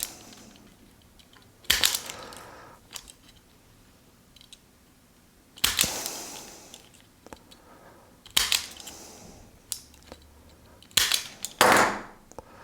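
About five sharp snaps a few seconds apart, each with a short rasping tail: a hand tool cutting and stripping the insulation of the black conductor of a speaker cable, ready to be twisted and tinned.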